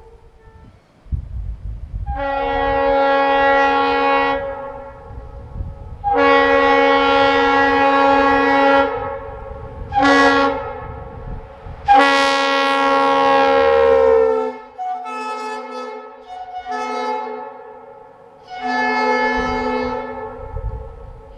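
Multi-chime train air horns sounding a series of chord blasts: two long blasts, a short toot, and a long blast whose pitch sags as it dies away, followed by softer blasts.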